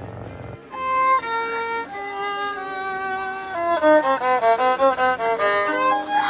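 A melody played on a violin, held notes stepping up and down and quickening about halfway through, after a low rumbling sound that cuts off in the first second.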